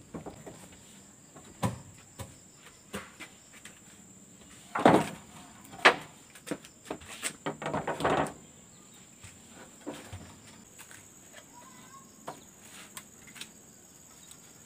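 Wooden slats knocking and clattering as they are set down and shifted on a grating, loudest in a run of knocks from about five to eight seconds in, then only occasional taps. A faint steady high tone runs underneath.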